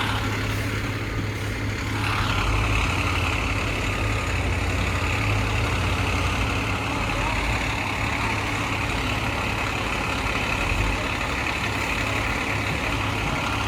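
Fire apparatus diesel engine running steadily at idle, with a steady high-pitched tone coming in about two seconds in.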